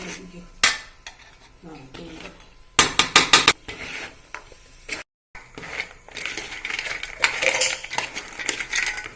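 A metal spoon scraping and clinking in a pan while stirring jaggery-coated fried plantain pieces with rice flour, dry ginger and cardamom. There is a quick run of sharp clinks about three seconds in, then, after a brief cut, steadier scraping and rustling of the stirring.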